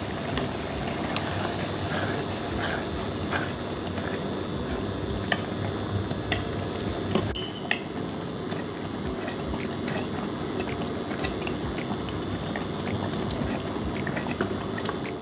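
Grated carrots, milk and sugar for carrot halwa simmering in an open pressure cooker, bubbling steadily as the milk cooks down to thicken. A wooden spoon stirs through it, with a few light clicks.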